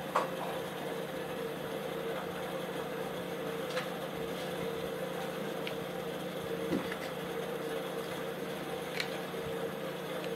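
A steady mechanical hum, like a small motor running, with a few faint clicks and paper rustles from handling a paper cone.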